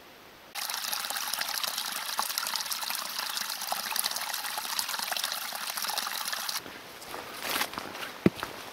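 A small stream of water trickling and splashing down a rock crevice, a steady hiss that starts suddenly about half a second in and cuts off after about six seconds. It is followed by footsteps on a forest trail, with a single sharp click near the end.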